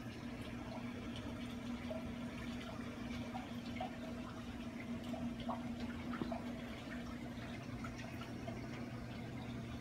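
Water circulating in a 240-gallon reef aquarium: a steady trickle and splash of moving water with a constant low electrical hum from the pumps, and small scattered drips.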